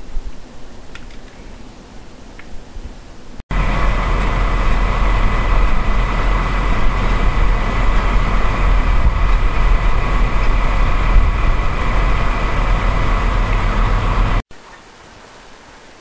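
A running electrical appliance or motor: a loud, steady noise with a thin high whine over a deep rumble. It cuts in abruptly about three and a half seconds in and cuts off abruptly about eleven seconds later, with a quieter rumble before and after.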